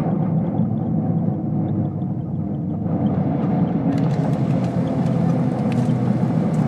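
Airliner cabin noise on the ground after landing: the jet engines run and the aircraft rolls with a steady rumble. About four seconds in, a brighter hiss joins in.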